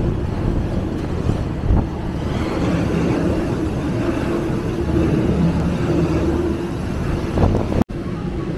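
Steady rumble of jet airliners taxiing and idling on the apron, with a faint held engine whine over it. The sound breaks off suddenly near the end and picks up again as a steady, duller hum.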